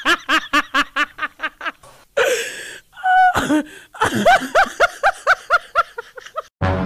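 Laughter in quick repeated bursts, about six a second, broken off for a moment in the middle and then picking up again. Background music starts just before the end.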